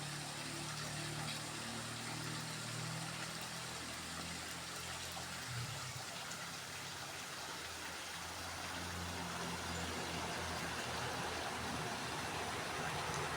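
Small waterfall pouring steadily into a pool, a continuous rushing splash of water, with a low, wavering hum underneath.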